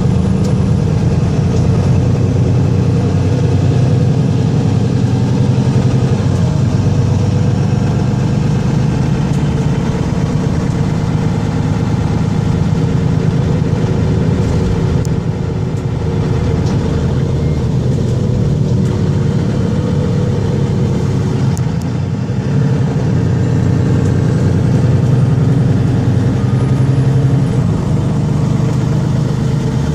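Mercedes-Benz Citaro Facelift city bus heard from inside the passenger cabin while driving: a steady engine drone over road and tyre noise. The engine note eases briefly twice in the second half and picks up again.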